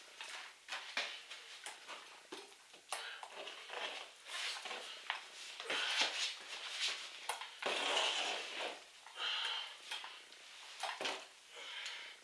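Paint roller spreading RedGard liquid waterproofing membrane over cement board, in a run of irregular short strokes.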